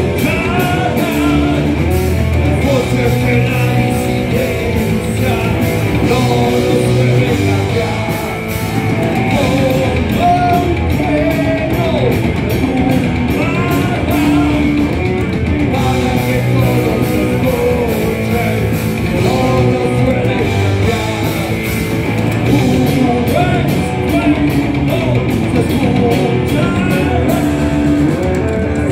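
Thrash metal band playing live: distorted electric guitars through Marshall amplifiers, bass and a pounding drum kit, with a singer's voice over them.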